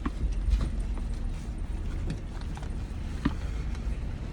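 Scattered light clicks and taps of food packaging and utensils being handled, over a steady low rumble of the car.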